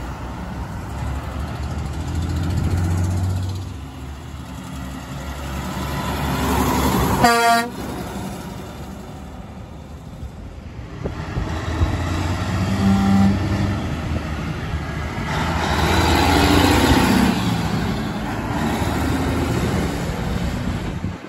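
Heavy diesel trucks driving past, engines and tyres rumbling, with one short truck air-horn blast about seven seconds in.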